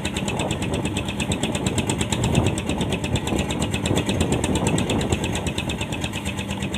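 Boat engine running steadily, with a rapid, even pulsing beat.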